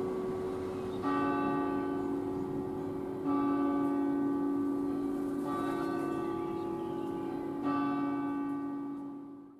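A bell tolling, four strokes about two seconds apart, each left ringing into the next. The sound fades out quickly right at the end.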